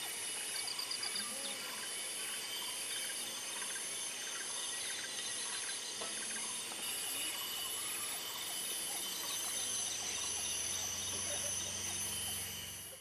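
Tropical rainforest ambience: a dense, steady chorus of insects with high, evenly pulsing tones, and a short rapid bird trill about half a second in.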